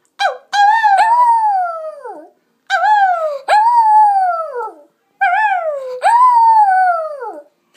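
Lhasa Apso dog howling: about three long howls with short gaps between them. Each starts with a brief note and then swells into a longer note that slides down in pitch.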